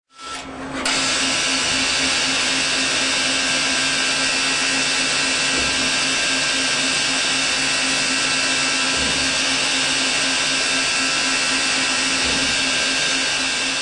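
Citizen Cincom K16 CNC lathe running and machining, a steady whirring hiss over a constant low hum. It fades in at the start and reaches full level within about a second.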